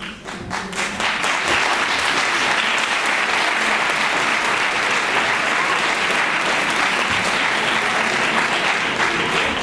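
Theatre audience applauding at the end of a scene. The clapping breaks out suddenly, builds within about a second, then holds steady.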